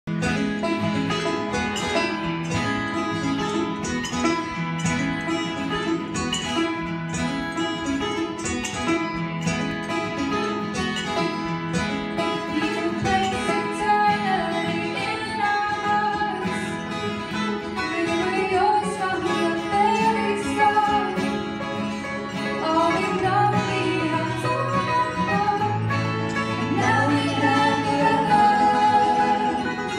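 Live church praise band playing a worship song: electric guitar and keyboard, with a girl's lead vocal coming in about 13 seconds in.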